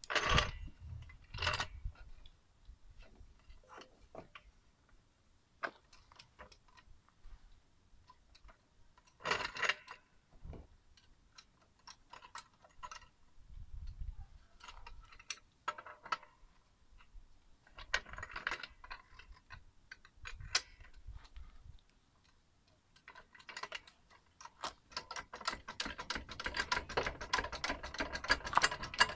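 Metal clicks, knocks and clatter from a red hydraulic floor jack being positioned and worked under a car, ending in a fast, even run of ratchet-like clicks from about 24 s.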